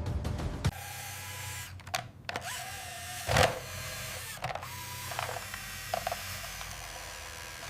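A small electric motor whirring over a steady low hum, with scattered clicks and creaks and one louder burst about a third of the way in.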